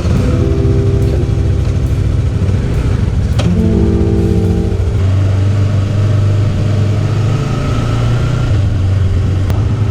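Background music with a stepped melody for about the first five seconds, over a steady low engine hum. The music then gives way to a motorcycle engine running steadily.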